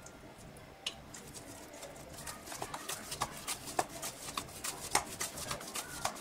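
Hands kneading a soft, freshly oiled dough of leftover rice, potato and wheat flour in a glass bowl: sticky squelches and light taps against the glass, starting about a second in and coming a few times a second.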